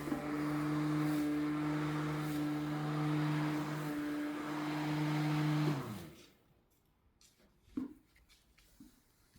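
Ryobi ONE+ 13-inch cordless battery lawn mower running with a steady electric motor hum. About six seconds in it is switched off and the motor winds down, falling in pitch to a stop, followed by near quiet with one faint knock.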